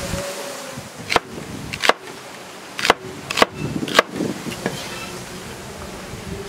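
A cleaver chopping celery stalks on a wooden cutting board: about half a dozen sharp, unevenly spaced chops.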